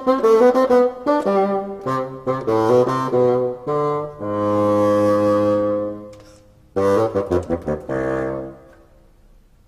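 A single bassoon playing a melody: a run of short notes, a long low note held for about two seconds midway, a few more notes, then it stops about a second before the end.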